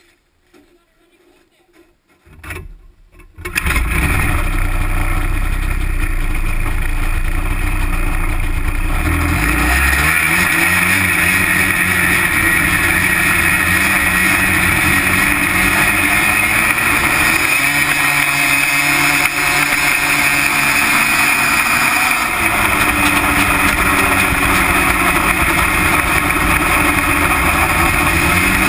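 Snowmobile engine and belt-drive clutches heard from right beside the clutches: nearly quiet at first, the engine comes to life about three seconds in and then runs loud and steady, its lower tones shifting about ten seconds in.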